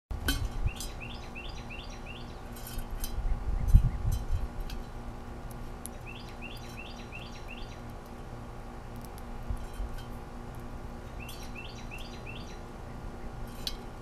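A songbird singing three short phrases several seconds apart, each a quick run of short chirps. Sharp taps come and go over a steady low hum, and a loud low thump about four seconds in is the loudest sound.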